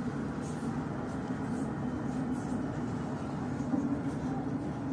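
Tram running at speed, heard from inside the passenger car: a steady low rumble of wheels on rails and running gear.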